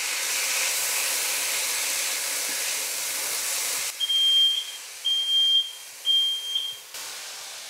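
Shredded potatoes and leek sizzling in butter and oil in a frying pan while being stirred with a wooden spatula. About four seconds in, a smoke alarm sounds three high beeps about a second apart, set off by the cooking.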